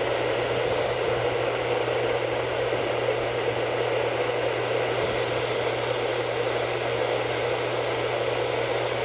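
Steady hiss of radio static from an off-air receiver, with a low steady hum underneath.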